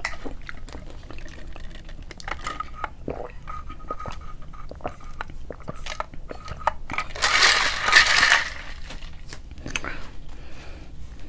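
A person eating McDonald's food close to the microphone: scattered small crunches and clicks of chewing, with a louder noisy crunch or rustle about seven seconds in.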